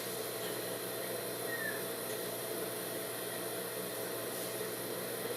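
Steady background hiss with a low hum underneath; no distinct sounds stand out.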